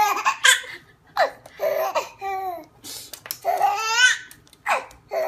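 Baby laughing hysterically in repeated short bursts, with a longer warbling laugh about four seconds in.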